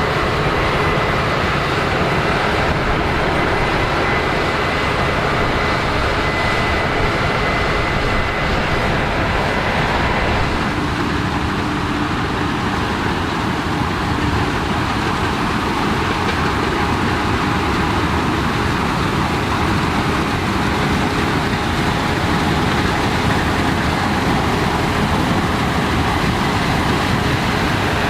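Case IH 9260 Axial-Flow combine harvester running steadily under load while harvesting canola, a dense, loud machinery noise. A faint high whine in it stops and the sound changes character about ten seconds in.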